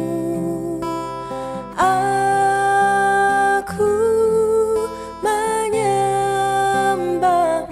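Acoustic guitar accompanying a woman's voice singing long held notes in a slow worship song.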